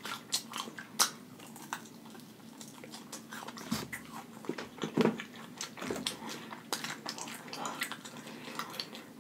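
Chewing and biting on fried chicken wings, with irregular crisp crunches and wet mouth clicks.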